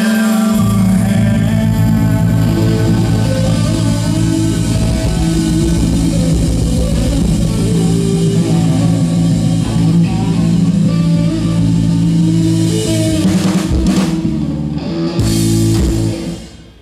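Live rock band playing: electric guitar, bass guitar and drum kit. A few sharp closing hits come near the end, and then the music stops suddenly as the song ends.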